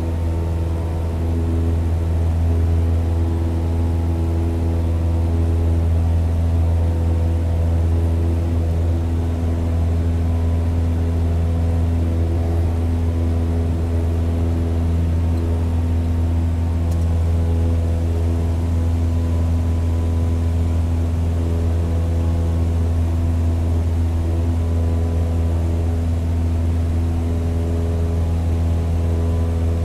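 Light single-engine floatplane's piston engine and propeller running steadily under climb power, heard from on board the aircraft as a deep, even hum that holds one pitch.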